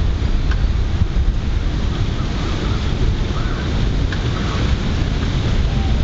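Steady low rumbling wind noise on the microphone, with a few faint bird chirps and a couple of faint taps under it.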